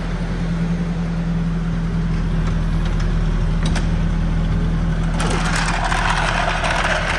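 Nissan pickup's engine idling steadily. About five seconds in, a loud rough rushing noise starts suddenly and carries on over it.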